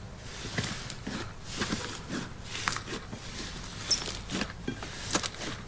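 Slime topped with sprinkles being squished and poked by hand, making irregular sticky clicks and soft squelches.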